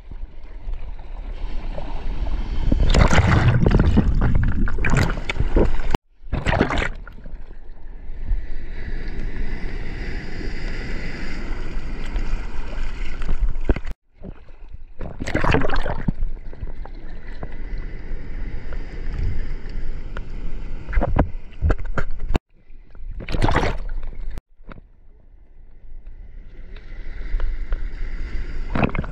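Sea water sloshing and splashing against a GoPro held at the water surface, with louder surges as waves pass over it. The sound is broken by several abrupt cuts.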